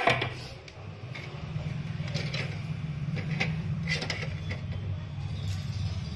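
Knocks and small taps of a replacement phone touch-screen panel being handled and pressed on a silicone repair mat, a sharp knock right at the start the loudest, over a steady low hum.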